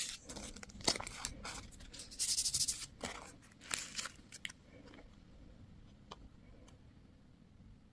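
Plastic candy and toy packaging being opened by hand: short bursts of crinkling and tearing through the first half, then a few light clicks.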